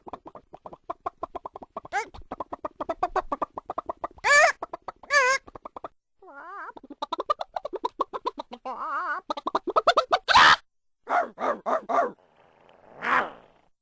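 A run of short sound-effect samples, mostly chicken sounds: hens clucking in quick pulses with loud squawking calls between them. From about six seconds in, other short animal or bird calls follow one after another.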